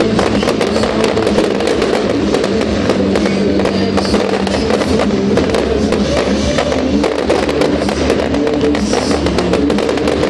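Music with steady sustained notes and drums plays throughout, mixed with the dense crackling and popping of aerial fireworks bursting.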